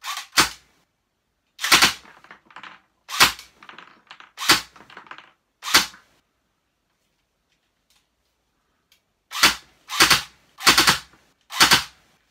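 Airsoft pistol with an Xcortech XT301 compact tracer unit on the muzzle, test-fired in the dark. There are about ten sharp shots, some with fainter knocks after them: six spaced a second or so apart, a pause of about three seconds, then four in quicker succession near the end.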